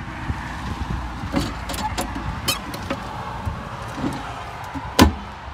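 Handling and wind noise on the microphone with a few light knocks, and one loud thump about five seconds in, as someone climbs from the swim ladder onto a fiberglass boat's swim platform.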